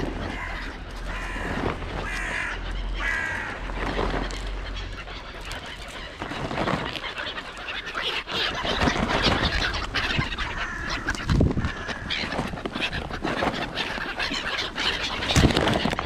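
Crows and gulls calling. From about the middle there is close plastic-bag rustling as peanuts are shaken out.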